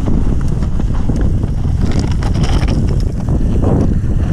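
Wind buffeting the camera microphone as a mountain bike rolls fast downhill over rough grass and rock, with frequent rattles and knocks from the bike over the bumpy ground.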